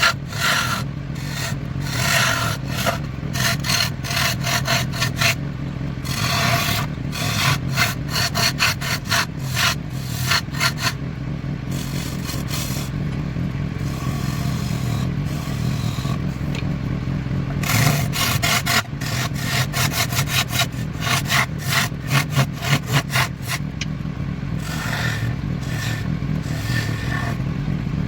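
Wood lathe running with a steady motor hum while a turning tool scrapes and cuts the spinning wood in quick repeated strokes, which ease off for a few seconds around the middle.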